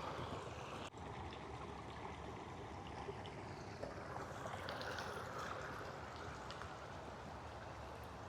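Flowing water running steadily.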